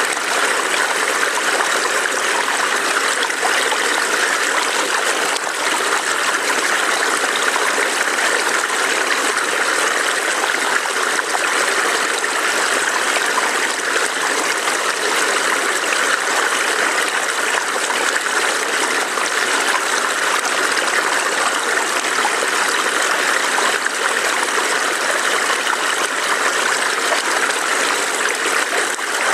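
A small forest stream burbling over rocks, a steady rushing and trickling with no pauses.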